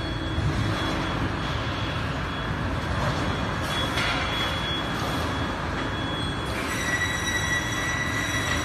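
Electric rail transfer cart rolling along steel floor rails under a loaded board rack, with a steady rumble and a thin high whine; a second, lower whine joins about two-thirds of the way through.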